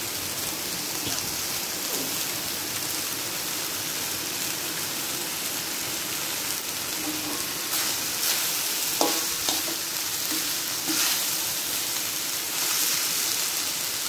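Fried rice sizzling in a hot wok while a metal spatula stirs and turns it: a steady frying hiss, with occasional scrapes and clinks of the spatula against the pan.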